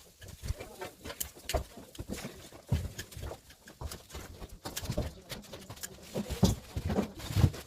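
Irregular snaps, clicks and rustling of guava branches and leaves being cut and handled during trimming. The loudest snaps come in the last second and a half.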